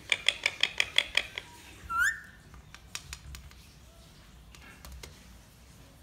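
Indian ringneck parakeet calling: a fast run of about eight short, sharp chirps in the first second and a half, then one loud rising whistle about two seconds in, followed by a few faint clicks.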